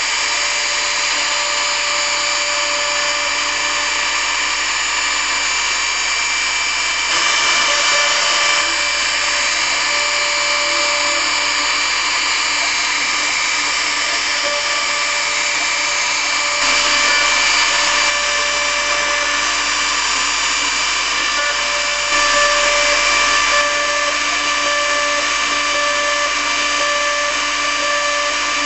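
Hobby CNC router's spindle running as its bit mills a relief carving into a wooden board: a steady whine over the cutting noise. It grows a little louder for a second or two three times.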